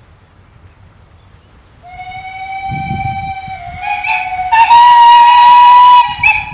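Whistle of a 15-inch gauge steam locomotive: one long blast that starts about two seconds in, steps up in pitch and grows much louder partway through, then cuts off shortly before the end.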